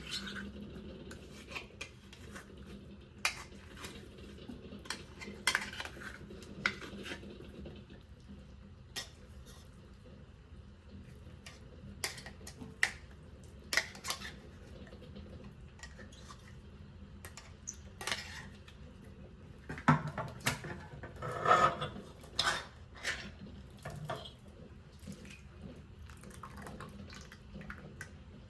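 Cutlery and dishes handled during kitchen food preparation: scattered light clinks and taps of utensils against bowls and plates, with a busier run of clinks about two-thirds of the way through.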